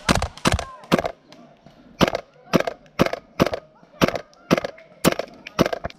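Airsoft gun firing about eleven single shots, roughly two a second, with a short pause after the first three.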